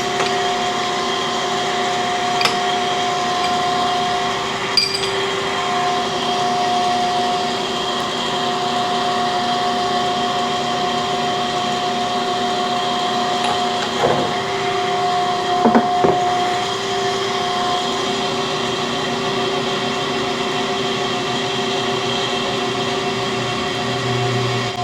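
Steady whining hum of shop machinery running, with a few short metallic clicks and knocks from tools being handled as a cam grinder's tailstock is worked on.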